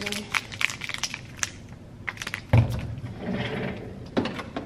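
Plastic drink bottles being handled and shifted, with many sharp clicks and crinkles, and one heavy thump about two and a half seconds in.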